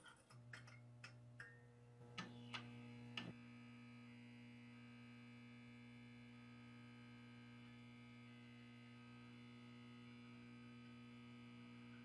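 Outro logo sting: about seven quick ringing hits over the first three seconds, then a quiet, steady electronic drone of several held tones.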